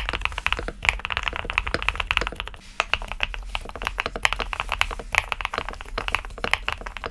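Typing on a Cadence 75 custom mechanical keyboard: a fast, steady stream of key clicks, several strokes a second.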